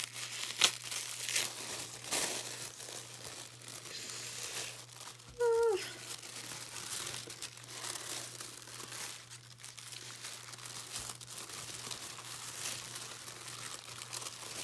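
Thin tissue paper crinkling and rustling as a wrapped package is unfolded, starting with decorative paper tape being peeled off it. About five and a half seconds in there is a short vocal sound that falls in pitch.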